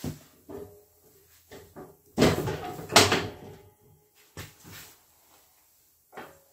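Clunks and scraping of a Kimpex Click n Go 2 ATV plow's steel frame against the ATV's under-frame mount as the blade is worked into place and its hooks latch on. There is a loud scrape ending in a sharp clank about two to three seconds in, with lighter knocks before and after.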